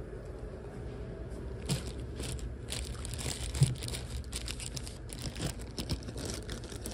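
Scattered rustling and small clicks of handling, with one sharper knock about three and a half seconds in, over a steady low hum.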